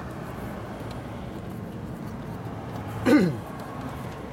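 Steady low background hum, with one short vocal grunt about three seconds in that slides down in pitch.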